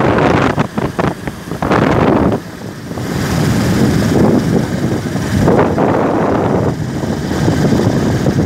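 Wind buffeting the microphone of a phone carried on a moving motorcycle, surging and dropping unevenly, over the noise of the ride.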